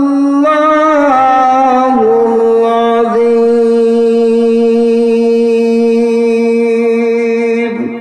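A man's voice reciting the Quran in melodic tilawat style into a microphone, holding one long drawn-out note. The note steps down in pitch twice in the first two seconds, is then held level for about six seconds, and fades near the end. This is the drawn-out close of the recitation after 'Sadaqallah'.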